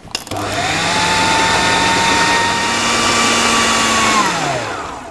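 Food processor motor switching on about a third of a second in and rising in pitch as it spins up. It runs steadily while blending pumpkin batter, then winds down with a falling pitch near the end.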